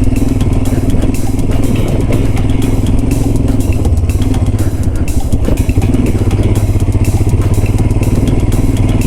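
Royal Enfield Himalayan's single-cylinder engine running steadily as the motorcycle is ridden along.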